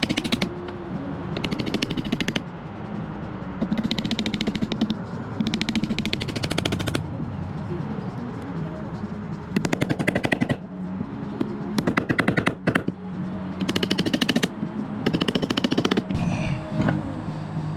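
Power saw cutting a notch in a hardwood board, run in about eight short bursts of rapid strokes with pauses between them.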